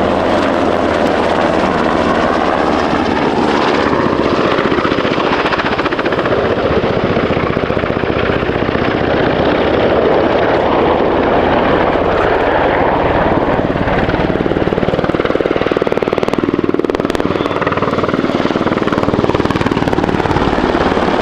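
German Army NH90 twin-turboshaft helicopter flying a display pass, its main rotor beating with a rapid chop over the engine noise. The pitch sweeps up and down several times as it manoeuvres past.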